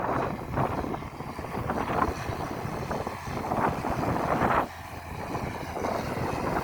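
A John Deere 6603 tractor's diesel engine running under load while ploughing, its level surging up and down, with a sudden drop about three-quarters of the way through.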